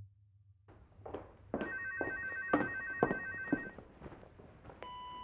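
A telephone rings with a trilling electronic ring for about two seconds, while several thuds sound about twice a second. Near the end there is a short steady tone.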